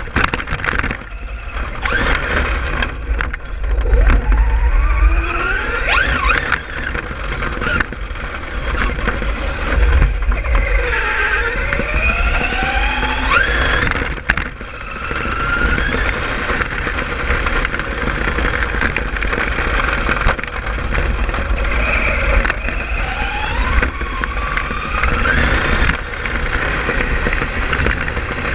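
Traxxas Stampede RC monster truck driven hard over gravel, heard from a camera mounted on its front. The motor's whine rises in pitch several times as it speeds up, over a steady rumble of tyres on gravel, with many knocks from bumps.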